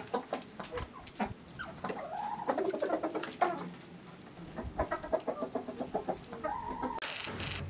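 A flock of domestic chickens, hens and roosters, clucking in short repeated calls, among many small clicks. A brief rustling noise comes just before the end.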